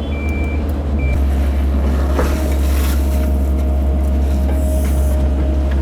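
Cat 308 mini excavator's diesel engine running steadily under load. A reversing alarm beeps twice in the first second, the engine gets louder about a second in, and a steady whine joins at about two and a half seconds.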